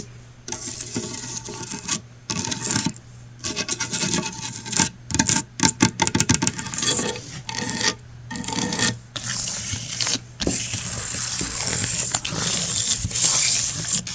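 Close-up scratching and rubbing on hard surfaces, broken by many quick clicking taps in the middle, with steadier continuous rubbing near the end.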